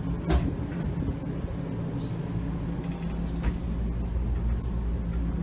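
A steady low machine hum, with one sharp knock about a third of a second in and a few faint ticks after it.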